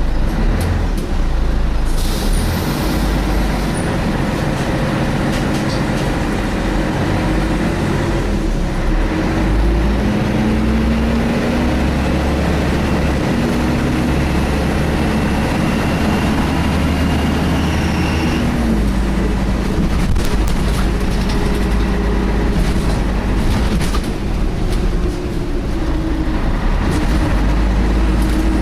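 Scania L113 bus's diesel engine heard from on board, running under way, its pitch rising and falling as it pulls away and changes gear. A short hiss of air comes about two seconds in, and a thin high whine rises slightly through the middle and then cuts off.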